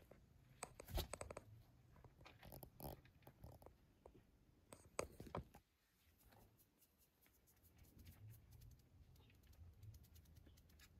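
Faint scratching and rustling with scattered small clicks, busiest in the first half and quieter after about five and a half seconds.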